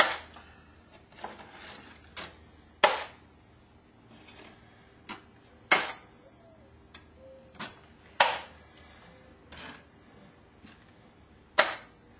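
Drywall knockdown knife swept over a wet texture patch on a wall: short scraping strokes, five loud ones a few seconds apart with fainter ones between.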